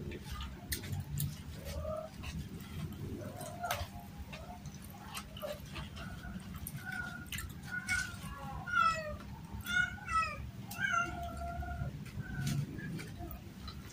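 A small animal calling again and again in short, wavering, high cries, most of them in the second half, over small clicks and smacks of food being eaten by hand.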